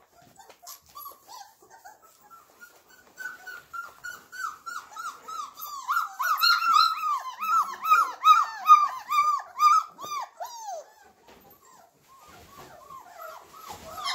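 Flat-coated retriever puppy whining in a rapid series of short, high-pitched cries that rise and fall, about two to three a second. They build from about three seconds in, are loudest in the middle, and stop about eleven seconds in.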